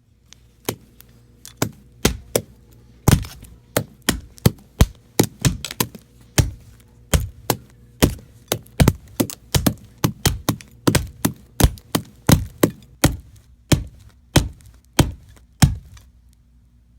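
Rapid, irregular series of hard knocks, about two to three a second: a flip phone being struck over and over. They start just under a second in and stop shortly before the end.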